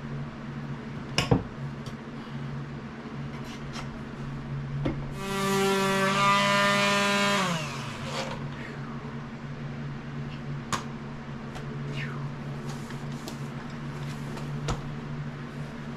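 A small electric power tool motor runs at a steady pitch for about two and a half seconds, starting about five seconds in, then winds down with falling pitch. A steady low hum underlies it, with a few sharp knocks and clicks scattered through.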